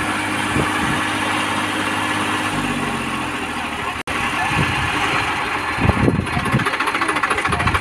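Massey Ferguson 241 DI tractor's three-cylinder diesel engine running under load with a trolley hitched and its rear wheels dug into sand. It runs steadily at first, drops out for an instant about four seconds in, then comes back as a rough, rhythmic chugging.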